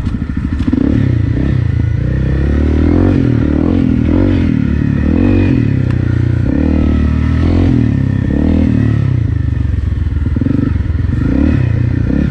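Honda CRF250 Rally's single-cylinder four-stroke engine through an FMF PowerCore 4 slip-on exhaust, revving up and easing off over and over, about once a second, as the bike is ridden along a dirt trail.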